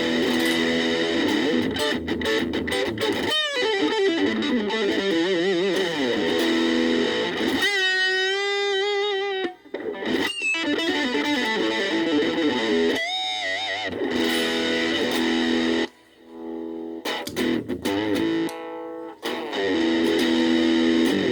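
Gaban Les Paul-type electric guitar played through a VOX Soundbox Mini amp: chords and single-note runs, with a held note shaken by vibrato about eight seconds in. The playing breaks off briefly near the middle and ends with quick short chords.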